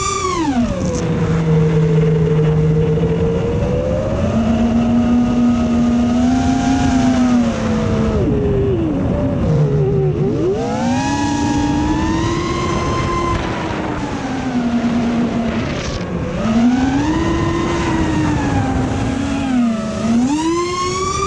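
FPV quadcopter's brushless motors and propellers whining, the pitch rising and falling with the throttle: several climbs and holds, a deep drop about halfway through, then surges again.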